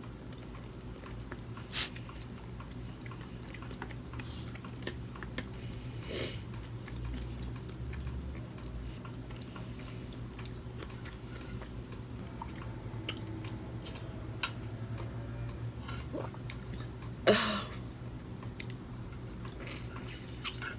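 A person chewing and eating sushi, with faint wet mouth sounds and scattered small clicks over a steady low hum. A brief louder noise comes about seventeen seconds in.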